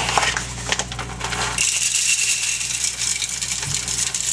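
Whole coffee beans poured into an electric coffee grinder's hopper, a continuous rattle of many beans hitting the container, growing denser about a second and a half in.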